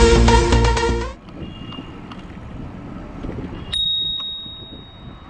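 Electronic dance music cuts off about a second in, leaving a rough background of riding noise. Near the end a bicycle bell dings once, a single clear high ring that fades out slowly.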